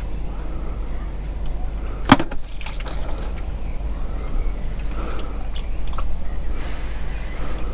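Old manual-gearbox oil draining out of the drain-plug hole into a drain pan, with one sharp metallic clank about two seconds in and a few lighter knocks after it.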